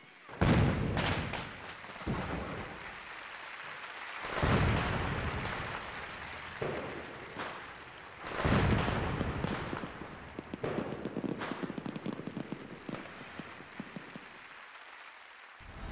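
A series of booms with rumbling tails, one every two seconds or so, each swelling suddenly and then fading.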